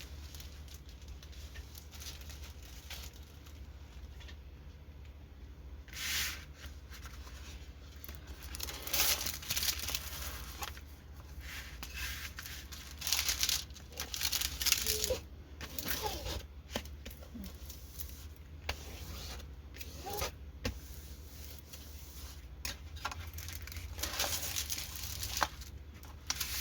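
Plastic packaging of a diamond painting kit crinkling and rustling in irregular short bursts as it is handled.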